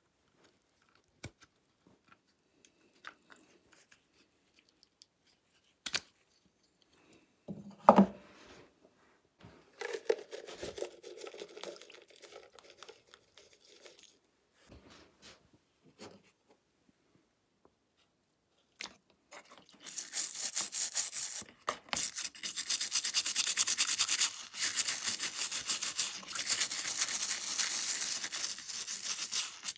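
Light handling clicks and one sharp knock about eight seconds in, then a few seconds of powder pouring into a tub of water. From about twenty seconds in a stiff brush scrubs the toy truck's grille in soapy water with rapid strokes, the loudest part.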